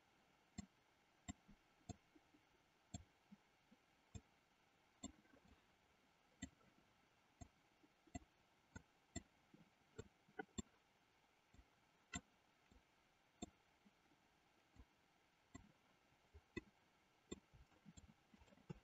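Faint, irregular clicking of a computer mouse, roughly one to two clicks a second, over near-silent room tone.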